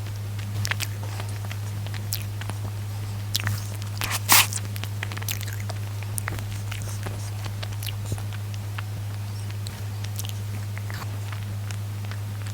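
Close-miked eating of cream-filled bread: scattered wet mouth clicks and chewing sounds, with one louder smack about four seconds in, over a steady low electrical hum.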